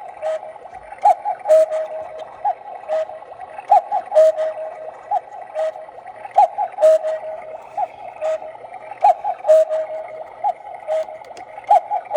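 Battery-powered quartz cuckoo clock striking the hour: a two-note electronic cuckoo call repeating about every two and a half seconds, counting out ten, with short chirps and clicks between the calls.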